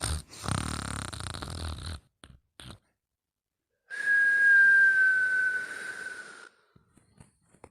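A sleeper snoring: a low, fluttering snore for about two seconds, then, after a short pause, a long whistling breath on one high tone that slowly drops in pitch.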